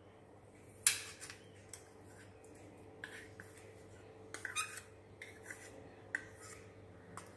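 A spoon scraping and tapping against a small ceramic bowl as chopped tomatoes are scooped out: scattered light clicks and scrapes over a faint steady hum.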